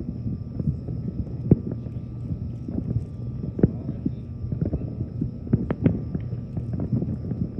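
Distant fireworks and firecrackers popping and thumping at irregular intervals over a steady low rumble, with a few louder pops about a second and a half in, three and a half seconds in and around five and a half to six seconds in.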